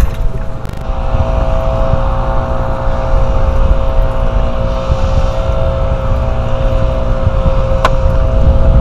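Wind buffeting the camera microphone on open water: a heavy low rumble under a steady hum, with one sharp click near the end.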